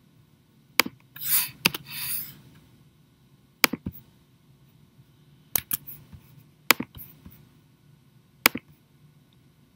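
Computer mouse and keyboard clicks while working in CAD software: sharp single clicks every second or two, some in quick pairs, with two short soft rustles about a second in.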